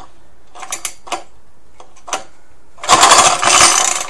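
Recoil pull-starter on an old Suffolk engine: a few light clicks from the starter mechanism, then one hard pull cranks the engine for about a second with a loud, rough rasping whirr, without it catching. The recoil starter has been freshly repaired and, by the owner's own word, it is not working brilliantly.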